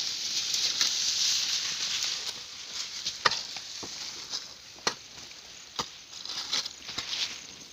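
A hand hoe digging into dry, crumbly soil: a dry rustling scrape of loose earth, then a few sharp knocks as the blade strikes the ground.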